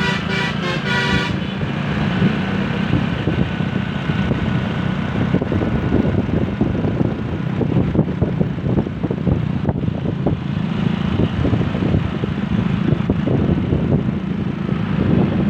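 A motor vehicle on the move, with a continuous low engine and road rumble broken by many irregular knocks and jolts. In the first second or so a multi-tone telolet basuri musical horn finishes a short tune and stops.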